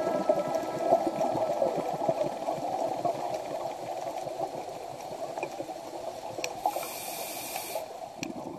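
Underwater bubbling and gurgling, with a brief hiss about seven seconds in, slowly fading away toward the end.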